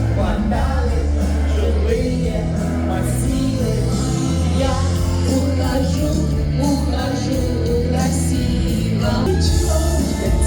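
A song playing: a singing voice over a steady bass line and band accompaniment.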